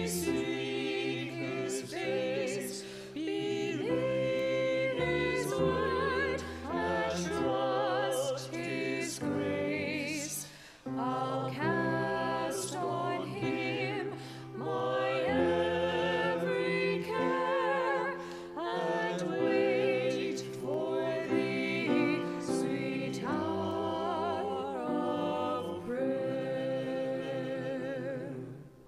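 A small mixed church choir of men and women singing together in several parts. The singing stops near the end.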